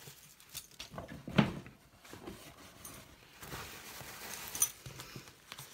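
Faint handling noises: scattered light knocks and rustles, with one louder knock about a second and a half in.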